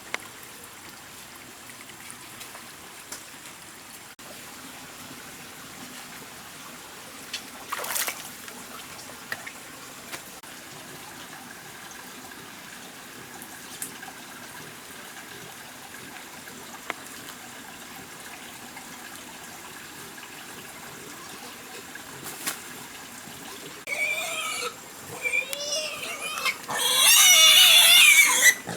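Faint steady background with a few sharp clicks. About three-quarters of the way in, a wild boar starts squealing in loud, wavering, high-pitched cries that grow into a near-continuous racket at the end.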